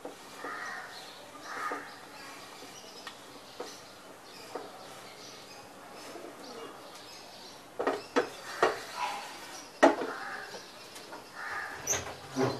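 Dry grated coconut rustling as a hand tosses it in a dry pan, with a run of sharp clicks and knocks from about eight seconds in. Birds call in the background.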